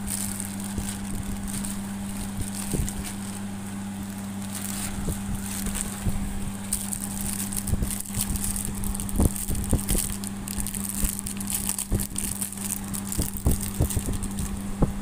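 Clear plastic wrapping around an aquarium siphon pipe crinkling and rustling as it is handled, with scattered sharp clicks that grow more frequent after about six seconds. A steady low hum runs underneath.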